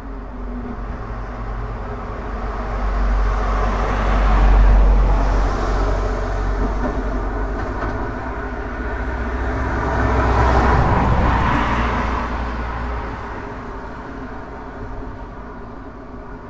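Road traffic passing on a street: cars go by with tyre and engine noise and a deep rumble, swelling as they approach and fading as they pass, twice, the first loudest about four to five seconds in and the second about ten to eleven seconds in.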